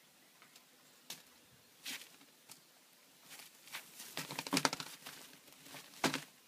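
A hen pecking at scrambled egg on newspaper spread over straw. Scattered sharp pecks and rustling of straw and paper come in a dense flurry about four to five seconds in, then one more burst near the end.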